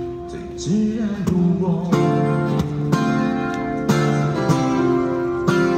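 Acoustic guitar strumming chords in a steady rhythm, with a male voice singing a short gliding note about a second in.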